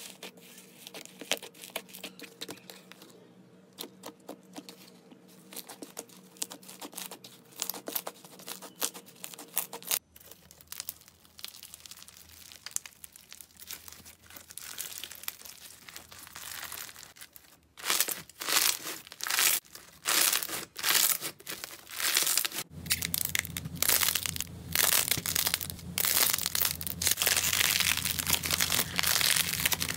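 Slime being squeezed, poked and pressed by hand: a dense stream of sticky crackles and pops, quieter at first, then louder and busier from about 18 seconds in, changing character several times as one clip gives way to the next.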